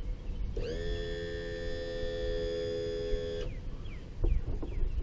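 A horn sounds one steady chord of several notes for about three seconds. Its pitch rises briefly at the start and it cuts off sharply. A couple of sharp knocks follow near the end.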